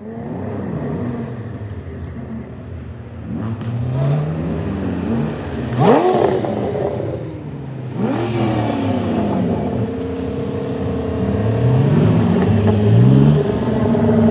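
Modified 2014 Ford Mustang 3.7-litre V6 with a Roush axle-back exhaust and BBK shorty headers, accelerating and revving. The engine pitch climbs and drops back several times, with a sharp rev about six seconds in and another about two seconds later.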